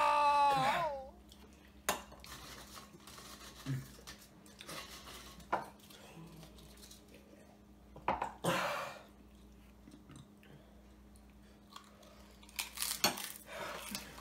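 A child's drawn-out shout falls away in the first second. Then a metal spoon clinks and scrapes against a small ceramic bowl of sauce in scattered taps a few seconds apart, with a small cluster near the end.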